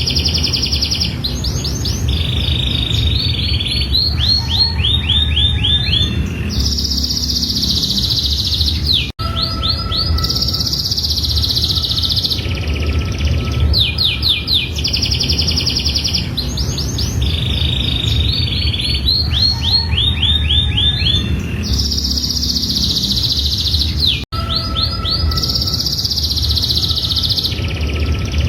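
Domestic canary singing a long, continuous song of rapid trills and rolling phrases, over a steady low background hum. The song sequence repeats about every fifteen seconds, with a brief sudden dropout about nine seconds in and again near the end.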